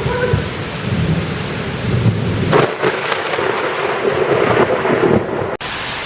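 Thunder rumbling through a heavy rainstorm, with a sudden sharper crack about two and a half seconds in.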